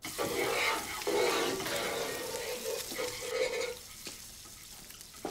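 Food sizzling in a frying pan, louder for the first four seconds or so and then quieter.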